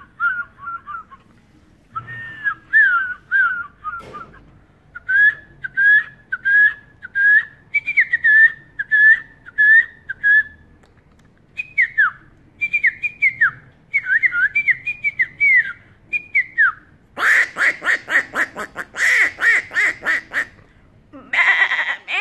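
A man imitating bird calls with his mouth: runs of short whistled chirps, each note dropping in pitch, in groups of several with brief pauses. About seventeen seconds in it turns into a harsher, rasping call repeated several times.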